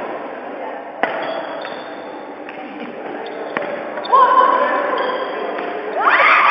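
Badminton rally: sharp racket hits on a shuttlecock, two of them about a second apart near the start, over steady chatter of spectators' voices. The voices grow louder near the end.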